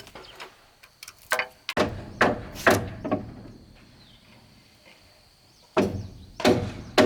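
Repeated sharp knocks of a tool striking wood or bamboo, about two a second, with a pause in the middle before the strikes start again near the end.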